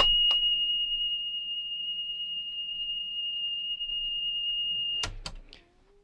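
A 3 kHz test tone from a calibration cassette playing on a Sharp GF-6060 radio cassette deck: one steady high-pitched tone with little audible wow or flutter. It cuts off with a click about five seconds in, and a couple of small mechanical clicks follow.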